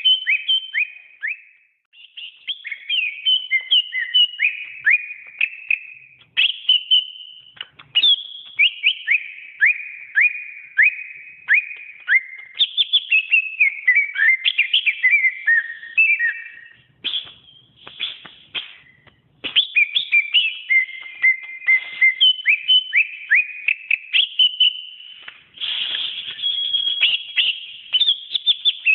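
Cucak ijo (green leafbird) singing a long, varied whistled song of quick falling notes and rapid runs, broken by a few short pauses.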